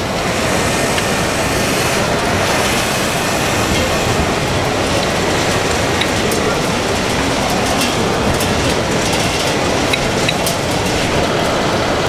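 Steady mechanical rumble of radio-controlled model trucks and a model wheel loader working, mixed with the hubbub of a crowded exhibition hall, with scattered light clicks.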